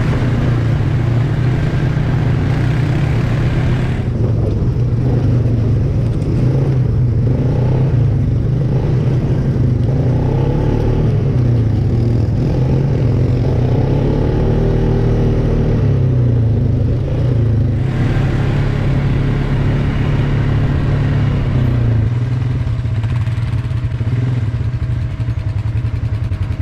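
ATV (quad) engine running under way, its pitch rising and falling with the throttle, easing off a little toward the end.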